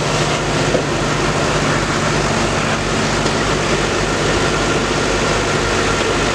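Diesel engine of a Knox Kershaw rail-mounted track-maintenance machine idling steadily, with a rapid low throb under a constant hiss.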